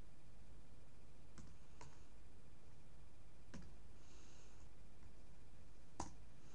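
Four separate keystroke clicks on a computer keyboard, spaced unevenly, over a steady low hum.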